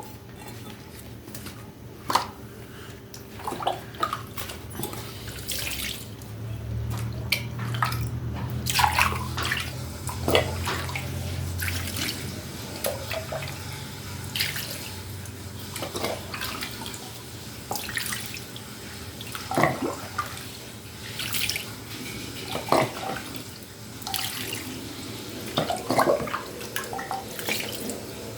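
Water splashing and dripping in irregular bursts as a mug is washed by hand in a sink, louder for several seconds about a quarter of the way in.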